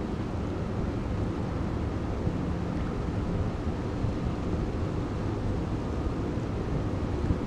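Wind rumbling on the microphone at the harbour's edge, a steady low noise, with a faint short hum about two to three seconds in.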